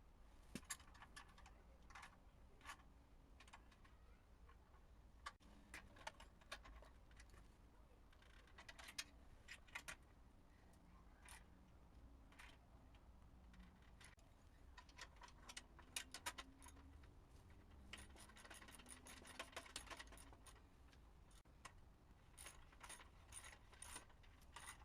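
Faint, scattered metallic clicks and clinks of hand tools being worked on motorcycle exhaust parts, with a quick run of clicks about eighteen seconds in.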